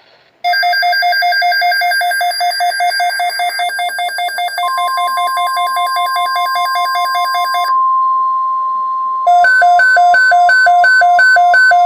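Weather radio alert alarms beeping in a rapid two-tone pattern, set off by a severe thunderstorm watch. About four and a half seconds in, the steady NOAA Weather Radio 1050 Hz warning alarm tone joins them. Near eight seconds the fast beeping stops, and a second later a louder, slower beep of about three to four pulses a second takes over.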